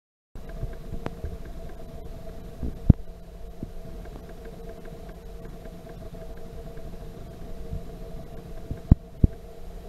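Steady room hum with a low rumble and two faint steady tones. It is broken by a few sharp taps: one about three seconds in and two in quick succession near the end.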